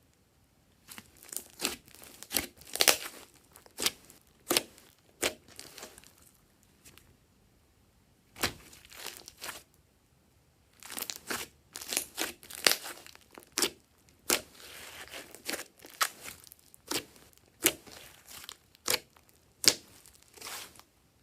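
Slime being squeezed and poked by hand, giving irregular sharp pops and crackles in clusters with short quiet pauses between.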